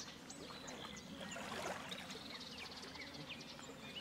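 Lakeshore ambience: water lapping against stones, with scattered short, falling bird chirps.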